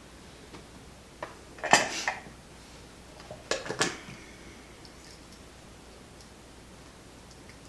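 Lock-picking tools clicking and scraping in a pin-tumbler challenge lock, in two short clusters of sharp metallic clicks with a single click before them and faint ticks after.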